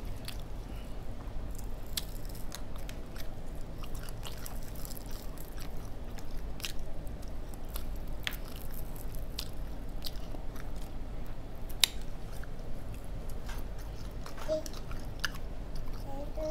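Close-miked chewing of fried flounder, with scattered sharp clicks and small crackles as the crispy fried fish is picked apart by hand. A steady low hum runs underneath.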